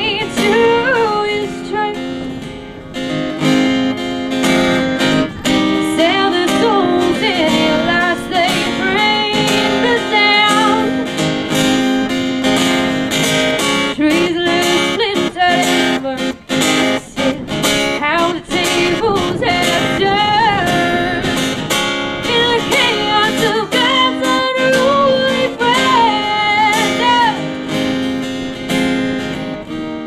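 A woman singing to her own strummed acoustic guitar.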